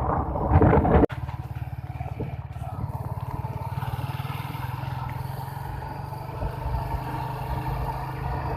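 Wind buffeting the microphone for about a second, then an abrupt cut to a Suzuki GSX-S150's single-cylinder engine running at a steady, unchanging speed.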